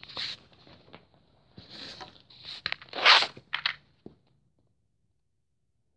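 Short scraping and rustling noises with a few sharp clicks as small hands work a part back onto a KTM 65 SX dirt bike's crankcase; the noises stop about four seconds in.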